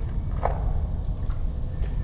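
Distant city traffic heard from high above: a steady low rumble, with one short higher sound about half a second in.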